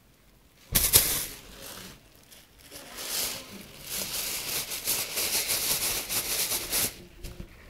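Close rustling and rubbing right against a phone's microphone: a sudden bump about a second in, then from about three seconds in a dense, scratchy scuffling that stops sharply near the end.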